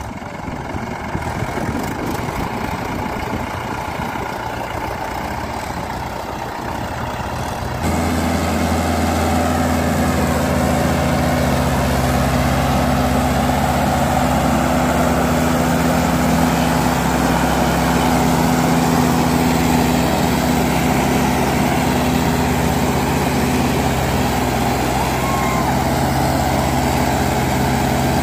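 Diesel tractor engines running under load as a Mahindra 415 DI tows a mud-stuck tractor and loaded trolley. The engine noise is rougher at first, then about eight seconds in it changes suddenly to a louder, steady engine drone.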